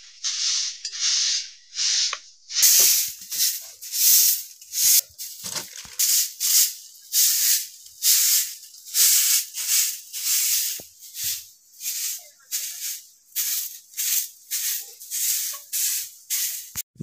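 Soft grass broom sweeping a bare earth floor in short, even swishes, about two strokes a second.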